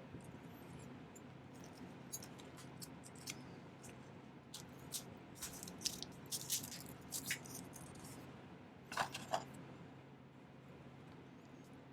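Scattered light metallic clicks and taps from a texture stamp being worked into sterling silver sheet, with a cluster of quick taps in the middle and a close pair near the end.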